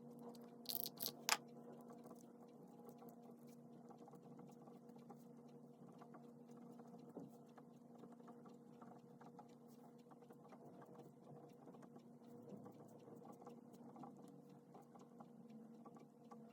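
Pen writing on paper: faint, irregular scratching over a steady low hum. A few short sharp clicks come about a second in.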